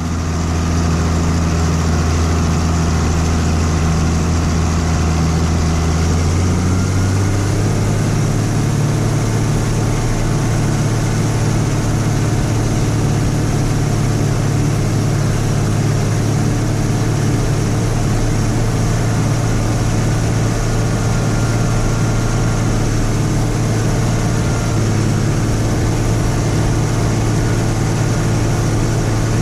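Combine's heavy diesel engine running steadily; its pitch steps up about seven seconds in and then holds.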